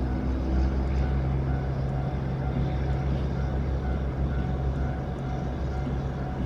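Freight train running with a steady low drone.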